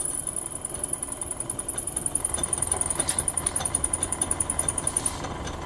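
Power drill running under load as the bit bores into a broken steering gearbox bolt, with a high whine and a fast, even chatter from the bit grabbing in the hole; the drill stops about five seconds in.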